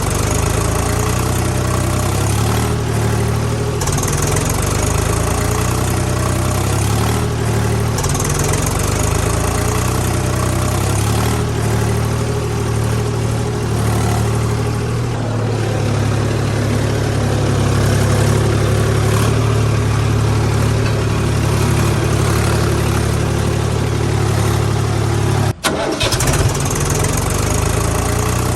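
Tractor engine running steadily at a low, even idle, with a brief cut-out about 25 seconds in.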